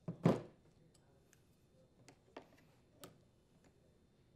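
Needle-nose pliers pulling a fuel hose off a leaf blower carburetor's barbed fitting: one brief, louder handling scrape at the start, then a few faint, scattered light ticks of metal tool on plastic and metal parts.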